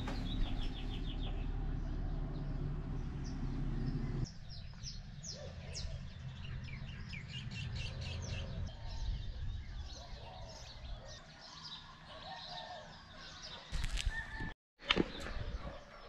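Many birds chirping and calling in short, high, rapid notes. A low steady rumble underlies the first few seconds and cuts off abruptly about four seconds in, and a few sharp clicks come near the end.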